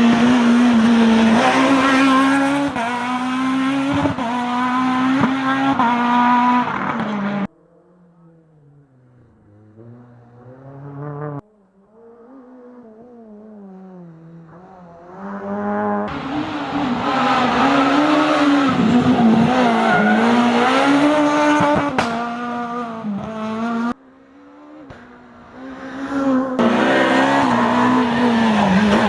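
Rally cars at full race pace, engines revving hard with the pitch climbing and dropping through gear changes, and some tyre squeal. The sound cuts off abruptly about a third of the way in and again near the end, each time followed by a quieter car drawing closer until it is loud again.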